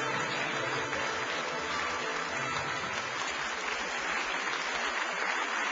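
Large audience applauding, a dense steady clapping.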